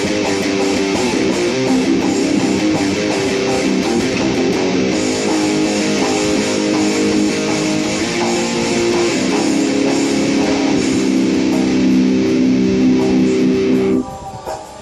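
Dean Dime ML electric guitar being played, with sustained chords and notes that stop abruptly near the end, followed by a few quieter notes.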